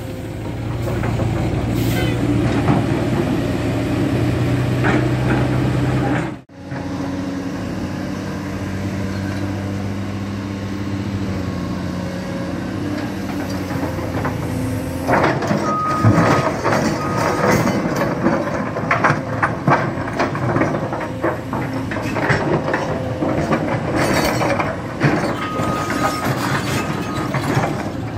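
Caterpillar 336 hydraulic excavator's diesel engine running steadily under load. From about halfway the bucket digs and scrapes through broken rock with many knocks and clatters, and short high beeps sound twice.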